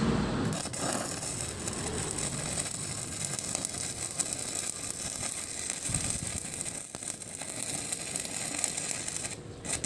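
Shielded metal arc (stick) welding with an LB low-hydrogen electrode on steel plate: a steady crackling, frying arc that breaks off briefly near the end.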